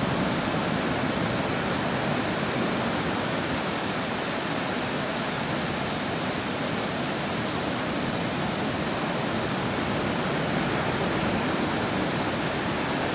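Steady hiss of surf washing on the shore, even and unbroken throughout.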